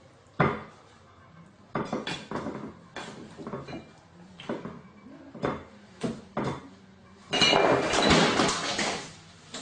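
Dishes and cutlery clinking and knocking in a string of separate sharp knocks as a gull moves and pecks among plates on a kitchen counter. Near the end comes a loud flurry of flapping as the gull takes off.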